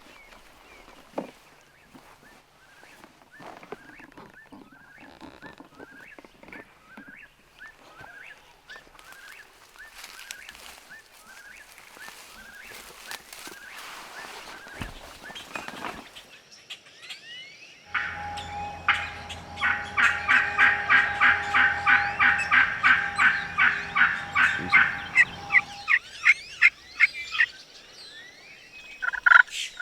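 Wild turkeys, Osceola turkeys, gobbling at dawn: long runs of rapid rattling gobbles that are loudest in the second half. Before them a bird repeats a short call about once a second, faintly.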